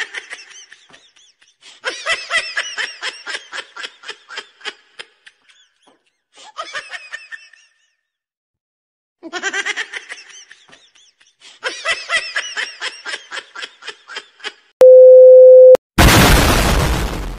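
Edited-in sound effects: quick pulsing laughter that plays, breaks off, and plays again, then a loud steady beep tone for about a second, then an explosion sound effect, a loud rush of noise that slowly fades.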